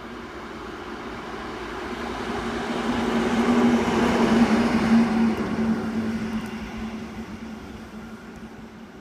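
A train passing: the noise builds to a peak about four to five seconds in and then fades, with a steady hum running through it.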